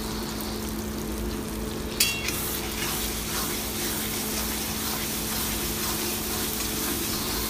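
Chana dal masala sizzling in a black wok while a flat metal spatula stirs it, with a sharp clink of the spatula against the pan about two seconds in and a few lighter scrapes after. A steady low hum runs underneath.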